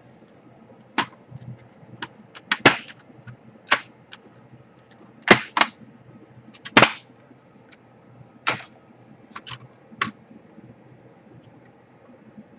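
Irregular sharp clicks and knocks from a laptop being taken apart by hand, about a dozen in all, with the loudest about three, five and seven seconds in.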